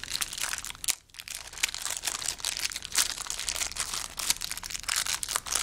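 Plastic packaging crinkling and crackling as it is handled and opened, in dense irregular crackles with a brief pause about a second in.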